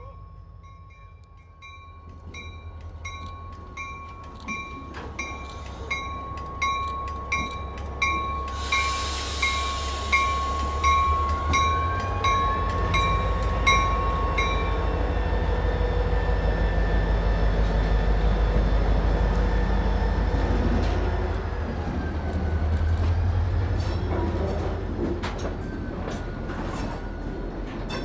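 CSX diesel locomotive approaching slowly with its bell ringing about once a second. The bell stops about halfway through and the engine's low rumble grows loud as the locomotive passes close. Near the end the heavy transformer car's wheels roll by with a faint squeal on the curved track.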